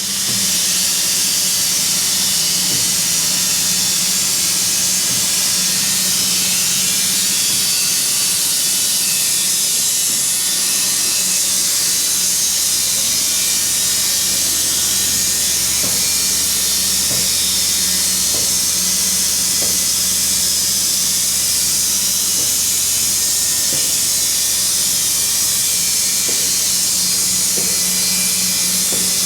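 Sawmill machinery running steadily: a loud even hiss over a constant low hum, with faint light knocks now and then.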